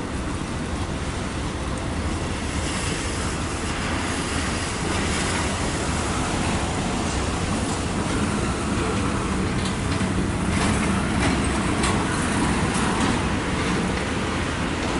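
Intermodal freight train rolling past: a steady rumble of steel wheels on rail, with scattered clicks from the rail joints.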